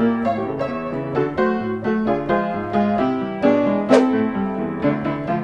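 Background music: a piano playing a melody over chords, note after note, with a single sharp click about four seconds in.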